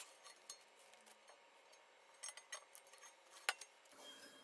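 Blue painter's tape being peeled off a painted cast-iron book press: faint crinkling and ticking of the tape, with one sharper click about three and a half seconds in.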